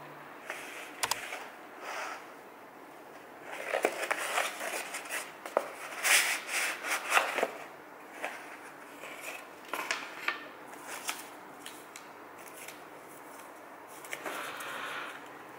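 Packaging being handled and opened: a moulded pulp box and its lid scraping and rubbing, and paper packets rustling, with a few light clicks. The handling is busiest from about four seconds in to halfway, with another rustle near the end.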